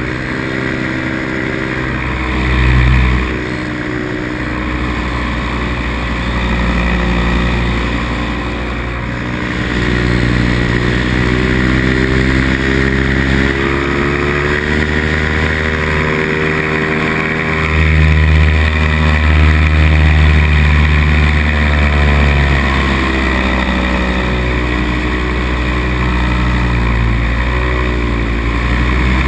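Nirvana Rodeo paramotor's two-stroke engine running steadily in flight, its pitch drifting up and down a few times, with wind hiss on the helmet-mounted microphone.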